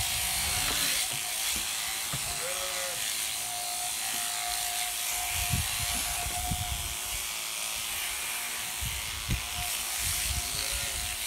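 Electric sheep shears running as a sheep is shorn, a steady whirring buzz from the handpiece, driven by a flexible shaft from an overhead hanging motor, with scattered low bumps of handling.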